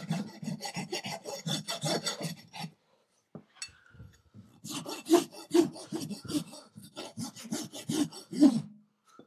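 Farrier's hoof rasp filing a horse's hoof wall in quick back-and-forth strokes, shaping the perimeter of the hoof. The rasping stops for about two seconds in the middle, then resumes until near the end.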